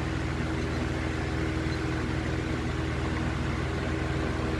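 Lakewood 200i 20-inch box fan running steadily on high with a swapped-in Toastmaster fan blade: an even rush of moving air over a low motor hum.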